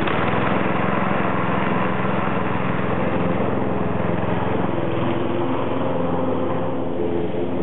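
Lawn mower engine running steadily as the radio-controlled mower drives across the grass.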